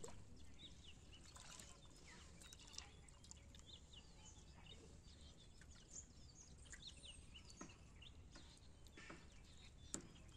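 Faint outdoor quiet with scattered small bird chirps and a few light splashes and drips of water as a fishing net is gathered by hand in shallow water.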